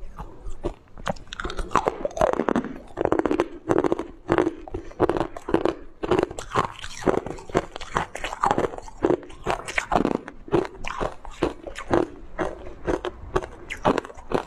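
A person biting and chewing chunks of frozen purple-coloured ice, a fast run of sharp, brittle crunches several times a second that never lets up.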